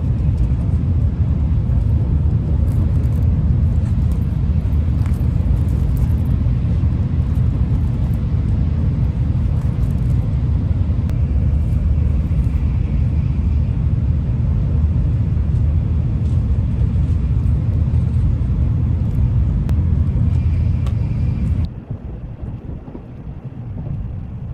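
Steady low rumble of a moving vehicle, with faint scattered clicks; it cuts off abruptly about twenty-two seconds in, leaving a quieter rushing noise.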